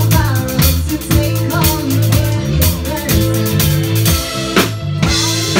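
Live band playing a dance-pop cover: a drum kit keeps a steady beat over a repeating bass line, with a woman singing. The cymbals stop for a moment about four and a half seconds in.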